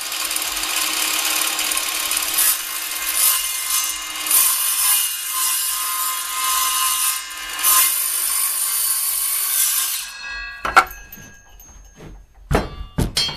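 18-volt cordless circular saw running and cutting across a 2x4, taking a little more off a notch with a few swells of load, then switching off and spinning down about ten seconds in. A few sharp knocks follow near the end.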